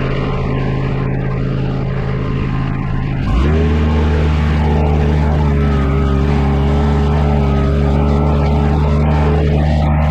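Engine of a compact land-clearing machine running steadily, then revving up to a higher steady speed about three seconds in.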